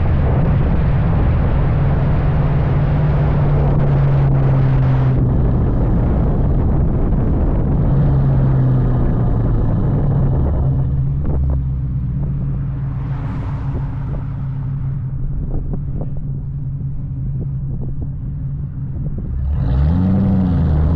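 2003 Mustang Cobra's supercharged V8 through an SLP Loudmouth exhaust, running at a steady note while driving. About eleven seconds in it drops to a lower, quieter note with scattered sharp pops, then revs rise near the end as it accelerates.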